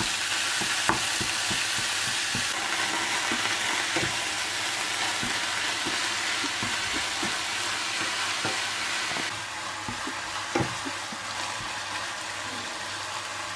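Minced beef sizzling in hot oil in a pan, with a spatula scraping and clicking against the pan as the meat is broken into crumbles. The sizzle eases slightly after about nine seconds, and a louder knock of the spatula comes a few seconds before the end.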